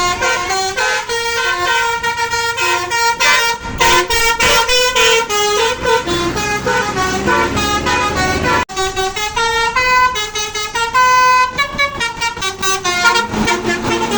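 Telolet horn of a Basuri tour bus playing a melody: multi-tone bus horns sounding quick runs of stepped notes, with a very brief break a little past halfway.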